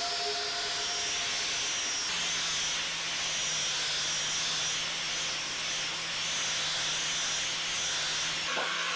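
Electric random orbital sander running steadily against a round wooden post: an even whirring hiss with a high motor whine.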